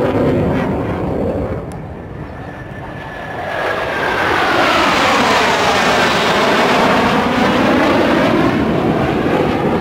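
Blue Angels F/A-18 Hornet jets roaring past in formation. The jet noise dips for a moment, then swells loudly about three and a half seconds in, with a falling whine and a whooshing sweep as the formation goes by.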